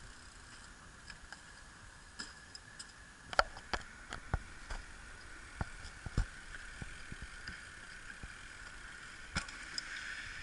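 Bicycle coasting on concrete, its freewheel hub ticking, with scattered sharp knocks and clacks as the wheels lift and drop back onto the ground; the loudest knocks come about three and a half and six seconds in.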